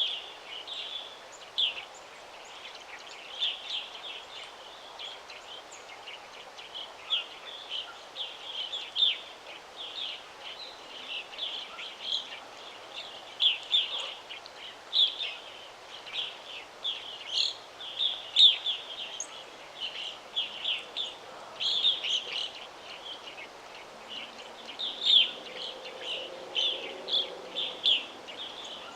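Songbirds chirping: many short, high chirps and twitters overlapping without pause, over a soft, steady background hiss.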